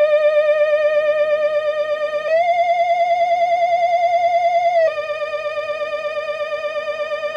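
Retro Halloween spooky sound-effect loop: a wavering, theremin-like electronic tone with a steady vibrato, stepping up a little in pitch about two seconds in and dropping back about five seconds in.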